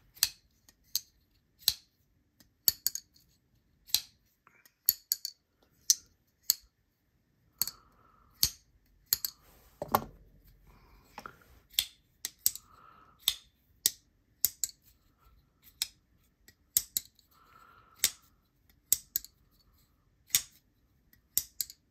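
Evolved EDC Rev prototype button-lock folding knives flicked open and closed again and again: a sharp metallic click or snap about once a second as the blade deploys and locks up or drops shut, sometimes two in quick succession. The milled handles give the clicks a bright, well-pronounced acoustic.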